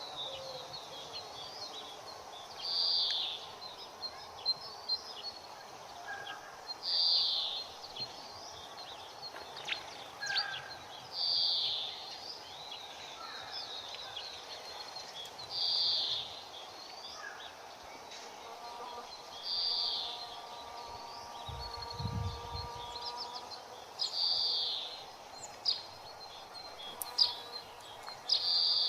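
Birds calling: one bird gives a short call about every four seconds, the loudest sound, with smaller chirps and tweets from other birds in between, over a low background hum of rural ambience.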